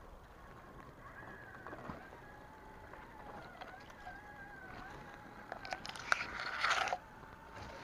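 Electric motor and gearbox of a scale RC crawler truck whining, the pitch wavering up and down with the throttle. About six seconds in, a louder rustle of grass brushes against it.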